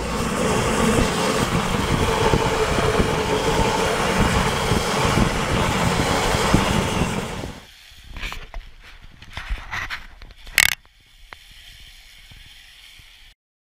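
Remora hull-cleaning tool's electric motor running, its round brush head scraping against a flat surface in a dense, steady whirr. It stops about seven and a half seconds in, followed by a few scattered handling knocks and one sharp knock near the end.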